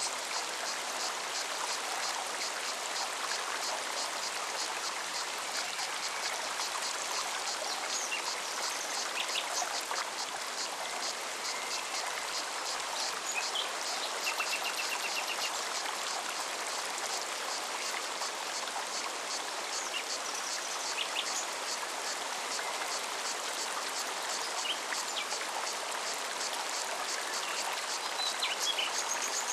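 Mountain forest stream running steadily, with a cicada's high, evenly pulsing song over it. Scattered short bird chirps, with a brief trill about fourteen seconds in.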